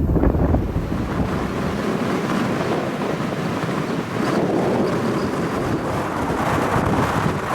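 Strong gale wind buffeting the microphone, heavy and rumbling for the first couple of seconds and then easing into a steady rush, over the wash of storm waves breaking on the lake.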